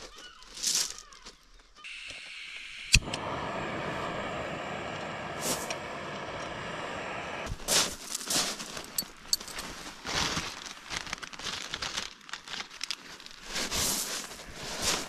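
Portable gas camp stove being lit: gas hisses, a sharp igniter click catches it, and the burner runs steadily for about four and a half seconds. It is followed by scattered light knocks and clicks.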